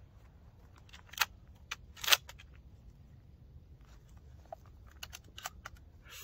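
Shotgun being handled and its action worked after a shot: two sharp metallic clacks about one and two seconds in, followed by lighter scattered clicks and handling noise.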